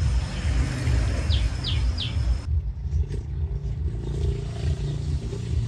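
Steady low rumble, with three quick bird chirps about a second and a half in.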